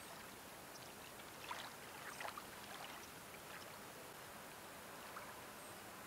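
Faint water lapping and trickling on a calm harbor surface, with a small cluster of soft splashes about a second and a half to two and a half seconds in, and a couple more later.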